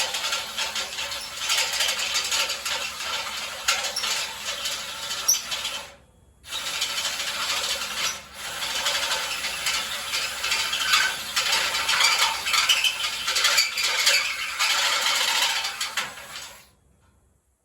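Continuous rattling, scraping metal-on-metal work noise. It drops out briefly twice and stops abruptly near the end.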